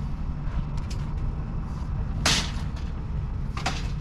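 An engine running steadily, with two short, sharp noises breaking in, about two seconds in and again near the end.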